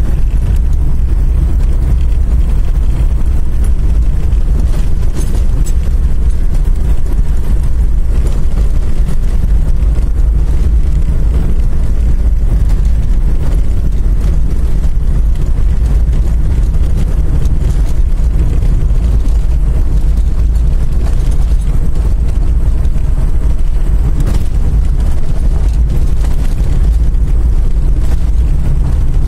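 A car driving on a dirt road, heard from inside the cabin: a loud, deep, steady rumble of tyres and road noise that runs on without change.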